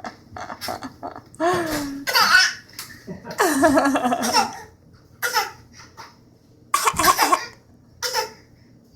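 A child coughing again and again in short bursts, with two longer stretches of laughing in between, a little over a second in and about three seconds in.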